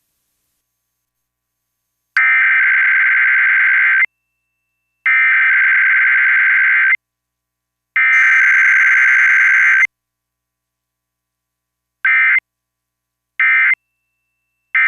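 Emergency Alert System SAME data tones: three digital header bursts of about two seconds each, spaced about a second apart. Near the end come three short bursts, the end-of-message code.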